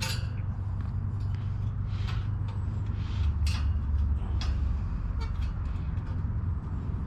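Light clicks and rattles of wire being handled and wrapped around a bicycle basket mount, over a steady low hum that grows a little stronger about three seconds in.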